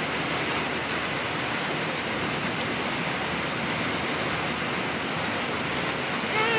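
Heavy rain falling, a steady, even hiss with no breaks. A voice cuts in briefly right at the end.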